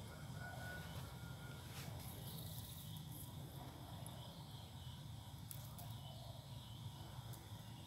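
Faint steady outdoor background hum with a high insect-like drone, and a few soft clicks from hands working at a potted desert rose and its tie string, about two seconds in and again around five and a half seconds in.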